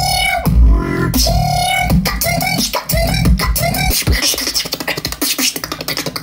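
Solo beatboxing: deep vocal bass and short pitched hummed notes over kick- and snare-like mouth sounds. About four seconds in it switches to a fast run of sharp clicks.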